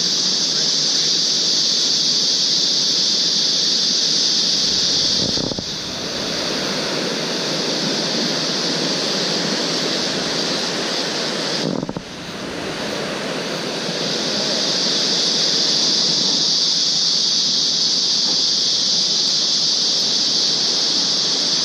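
Fast, swollen river rushing over rocks: a loud, steady wash of whitewater. A high, steady hiss on top of it drops away about five seconds in and comes back around fourteen seconds.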